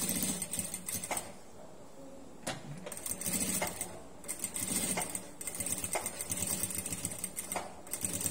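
Industrial single-needle lockstitch sewing machine stitching piping onto fabric in short stop-start runs, with sharp clicks between the runs.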